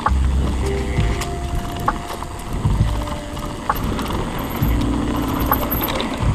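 Mountain bike riding over a rough dirt trail, with irregular knocks and rattles from the bike over bumps and wind rumbling on the microphone.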